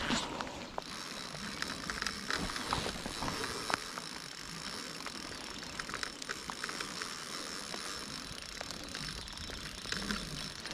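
Rain falling on the river surface, with many small sharp taps of drops landing close by.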